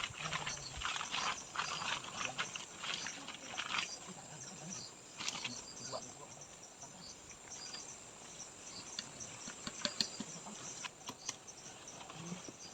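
Insects chirping steadily in high, rapidly repeating notes, with scattered irregular crackles and rustles that are busiest in the first few seconds and a few sharp clicks later on.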